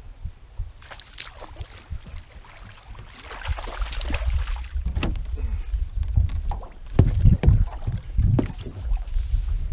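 A hooked bass splashing at the surface beside an aluminum fishing boat for a second or two about three seconds in, followed by several knocks and thumps against the boat as the fish is lifted aboard. A low wind rumble on the microphone runs underneath.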